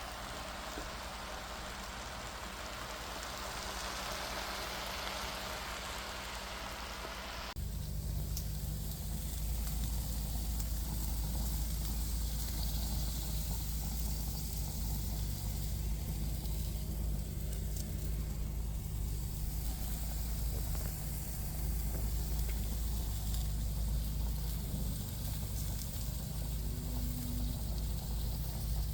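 Food sizzling in a frying pan for about seven seconds, then a sudden switch to a louder steady low rumble and hum.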